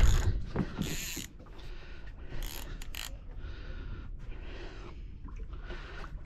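Heavy knocking from the camera being handled at the start, then a few short bursts of ratchet-like clicking from a fishing reel while a tope is being played.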